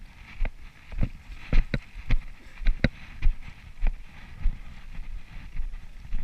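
Footsteps of people walking on stone paving, about two steps a second, each a short scuff or click with a low thud.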